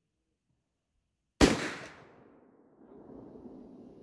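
A single rifle shot about a second and a half in, its report trailing off into a low rumble that lingers.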